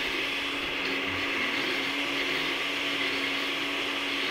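Countertop blender motor running steadily at one constant speed, with a steady hum. It is blending a thick cheese-and-chili sauce as oil is emulsified into it.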